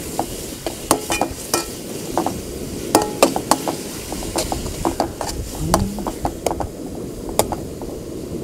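Perforated metal ladle scraping and clinking against an aluminium pan while stirring chopped onions, tomatoes and green chillies frying in oil, an irregular run of sharp clicks and scrapes.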